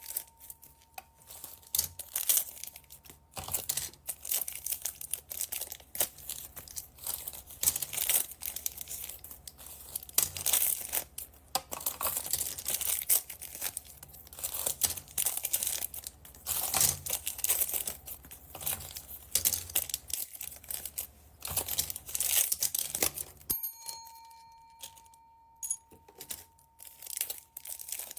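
Plastic packaging bags crinkling and being torn open by hand, a dense, irregular crackle for most of the stretch. It drops away about five seconds before the end, leaving a faint steady tone.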